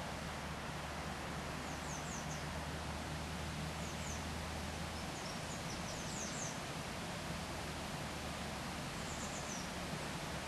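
Steady rushing of a flowing stream, with a few brief clusters of thin, high, falling bird chirps about every couple of seconds.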